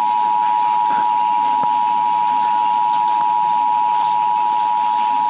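Emergency Alert System attention signal: a steady two-tone beep of 853 and 960 Hz sounding together, held without a break during an EAS test broadcast.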